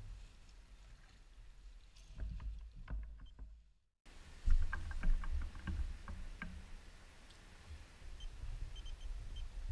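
Low rumble of wind and water around a small boat, with scattered knocks and clicks while a largemouth bass is landed and handled. The sound drops out briefly about four seconds in.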